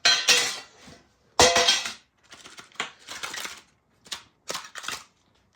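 Pokémon trading cards being handled and slid against one another: two loud, sharp card swipes in the first two seconds, then a string of softer rustles and flicks.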